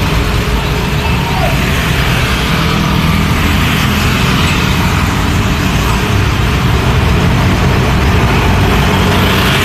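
Busy road traffic at close range: small minibus and van engines and motorcycles moving off past the roadside, over the low rumble of heavy diesel trucks coming up the road, a little louder near the end.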